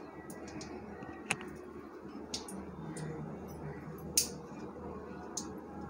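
Mustard seeds and chana dal crackling in hot oil in a steel kadai, with scattered sharp pops at irregular intervals, the loudest about four seconds in. This is the tempering stage: the oil is hot enough for the seeds to pop.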